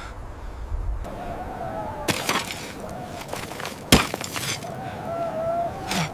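Broken masonry and rubble clattering and crashing as it is shifted, with sharp impacts about two seconds in and the loudest one near four seconds in, over a faint wavering tone.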